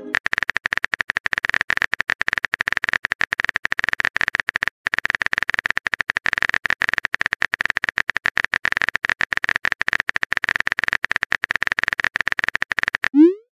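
Rapid, continuous keyboard-typing clicks from a texting app's typing sound effect, with a brief pause about five seconds in.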